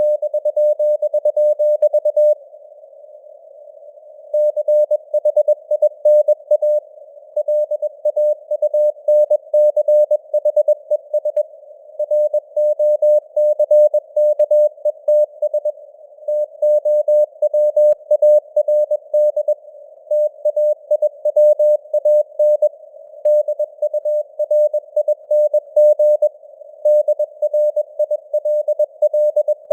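Morse code (CW) sent as a single steady tone keyed on and off at 21 words per minute, spelling out news headlines, with a pause of about two seconds near the start. It sits in simulated radio band noise, a soft hiss between the characters, and the signal strength fades up and down (QSB).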